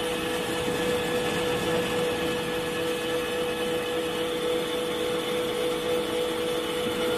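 C6151 engine lathe running with its chuck spinning at speed: a steady mechanical hum with a constant mid-pitched whine.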